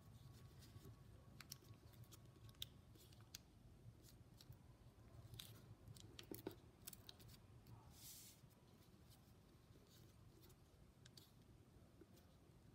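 Faint crinkles and ticks of a square of origami paper being folded and creased by fingers, with a short rustle about eight seconds in, over a low steady room hum.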